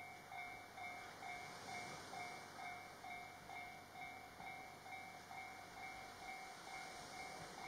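Railway level-crossing warning bell ringing steadily at about two dings a second, as a JR Hokkaido 721 series electric train approaches. The train's running sound is faint beneath it.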